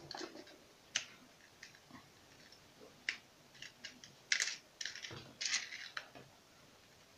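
Small plastic clicks and scrapes of hands handling a black plastic inline fuse holder on a power cable, fitting its spring and fuse: a single click about a second in, then a run of irregular clicks in the second half.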